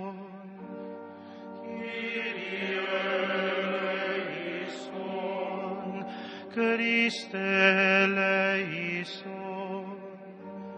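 Slow sacred chant: voices singing long held notes on sung words.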